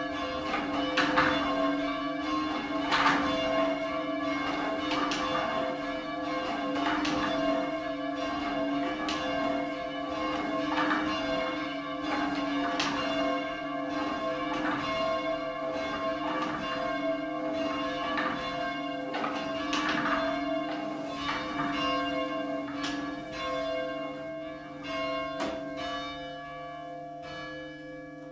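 Church bells rung in changes, the strikes following one another steadily and then dying away near the end. The ringing is half-muffled: one side of each clapper is muffled, so strokes alternate between a clear note and a dull note.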